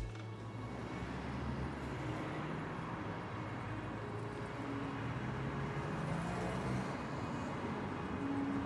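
Street traffic ambience: a steady wash of road noise from cars at an intersection, with a faint engine hum rising slightly about six seconds in.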